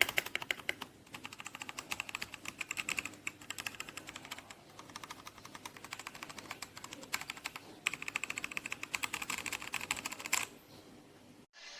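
Typing fast on a DAREU EK87 V2 mechanical keyboard: a dense, rapid run of key clicks that stops about ten seconds in.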